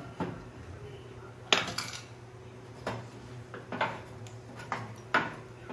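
Metal tools and engine parts clanking on a steel workbench: about six separate sharp knocks, the loudest about a second and a half in.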